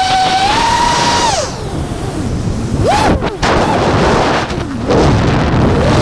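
FPV quadcopter motors and propellers whining. The pitch rises, then drops away as the throttle is cut about a second and a half in. A short throttle blip comes about three seconds in, and rushing wind noise fills the dive before the motor whine returns at the end.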